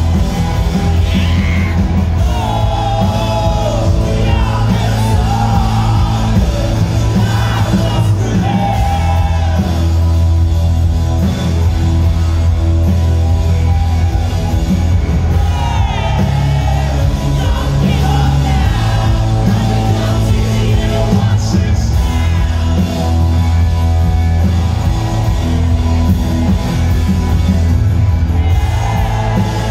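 Live rock band playing loud in a concert hall: acoustic and electric guitars over a heavy, steady bass, with some yells from the crowd.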